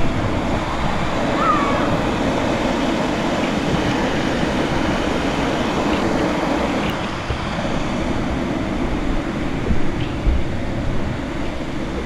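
River water rushing over rocks in a steady, even rush, with a couple of short knocks about ten seconds in.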